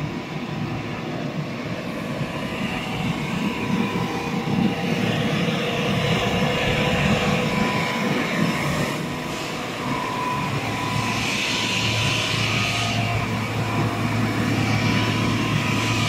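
Steady din of factory-floor machinery, with a hiss that swells for a couple of seconds past the middle and again near the end, and a low hum that joins in about two-thirds of the way through.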